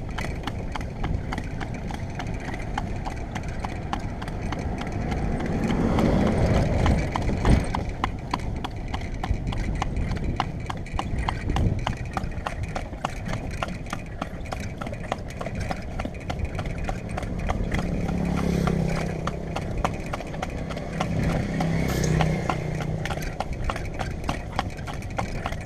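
A horse's hooves clip-clopping steadily on a paved road as it pulls a cart, with the rattle of the cart underneath. A low hum joins in for a few seconds near the end.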